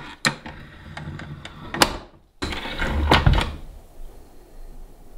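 Tilt-head stand mixer and its stainless steel bowl being handled: a run of clicks and metal knocks as the head is worked and the whisk is lifted out, with a sharp click a couple of seconds in and heavier knocks about three seconds in, then quiet. The mixer's motor is not running.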